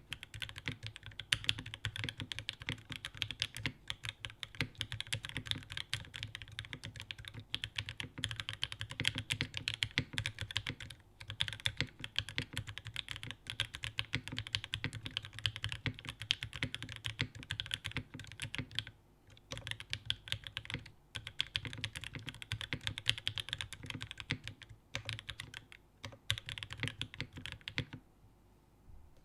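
Fast, continuous typing on a custom mechanical keyboard: top-mounted aluminium plate, OP Black switches that are lubed, filmed and swapped to 60 g springs, and GMK keycaps. The typing pauses briefly twice about two-thirds of the way through, and stops shortly before the end.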